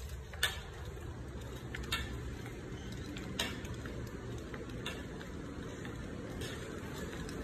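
Footsteps on a hard tiled floor: a faint sharp click about every second and a half over a steady low hum of the building and phone-handling noise as the phone is carried while walking.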